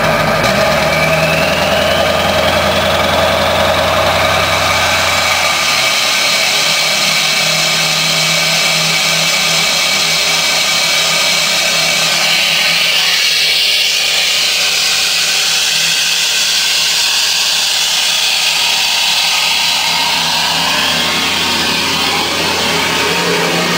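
Ford 7.3L Powerstroke V8 turbo diesel idling through a 5-inch exhaust. The engine note shifts about five seconds in and again near the end. This is an unstable idle, which the owner puts down to a failed ICP sensor that the computer ignores, opening and closing the IPR valve abruptly.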